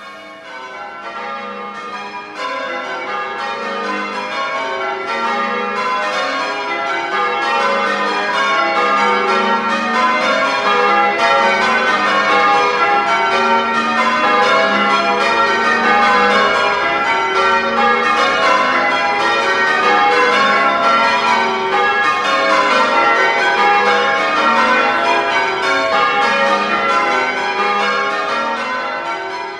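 Change ringing on the church bells of St John the Baptist, Grainger Street: a ring of bells struck one after another in continually shifting order, fading in over the first few seconds.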